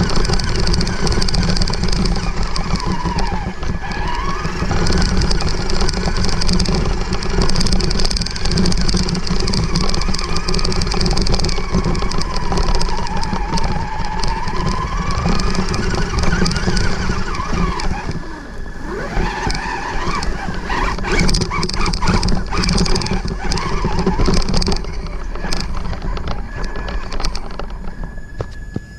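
Onboard sound of a Traxxas 1/16 Summit electric RC truck driving through long grass: the motor and gears whine, rising and falling in pitch with the throttle, over the swish of grass against the truck. In the last third, clicks and knocks from the chassis over rougher ground come in.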